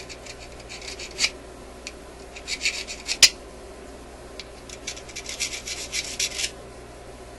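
Hand filing in bunches of quick, short rasping strokes, thinning a piece into a makeshift screwdriver. A single sharp click a little past three seconds in is the loudest sound.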